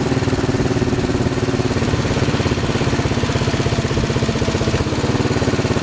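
Royal Enfield Bullet 500's single-cylinder four-stroke engine running steadily at cruising speed, heard from the bike itself as a fast, even pulsing beat, over a steady hiss of wind and road noise.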